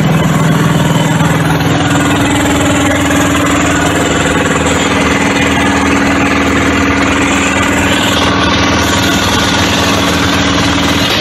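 A boat's inboard engine running steadily at an even speed during an engine test.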